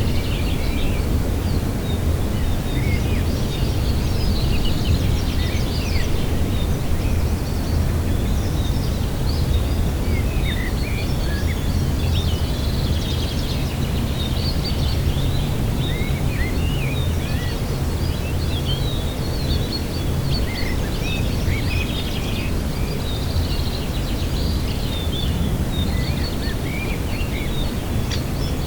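Small songbirds chirping and twittering over and over, with a steady low rumble of wind underneath.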